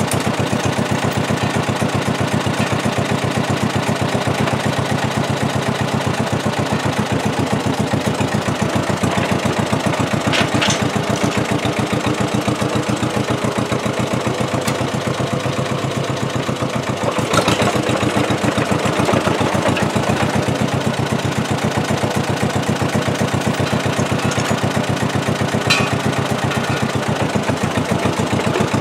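Small crawler bulldozer's engine running steadily, with a few short sharp clicks, the loudest about two-thirds of the way through.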